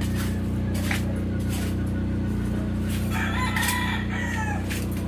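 A rooster crows once, about three seconds in, one long call. Under it runs the steady drone of construction vehicle engines, with regular short scrapes of a long-handled tool in a drain.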